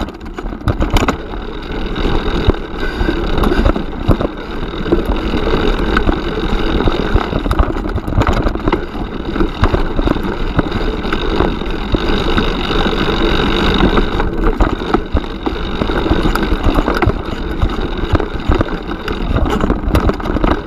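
Orbea Oiz M50 mountain bike riding over a rocky dirt trail, heard from a camera mounted on the bike: a steady rumble of tyres on stones and wind on the microphone, with frequent clicks and rattles as the bike jolts over rocks.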